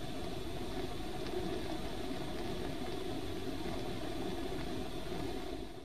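Bunsen burner flame burning with a steady, even rushing noise while a copper wire glows green in it.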